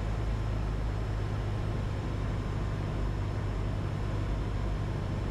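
Cessna 150's four-cylinder Continental O-200 engine and propeller droning steadily, heard from inside the cabin, at reduced approach power with a little power added on final.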